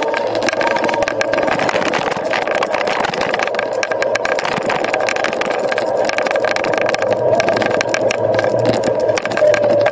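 Dualtron Eagle Pro electric scooter riding at a steady speed: its hub motors whining steadily under wind noise, with a constant run of small clicks and rattles from the deck and road.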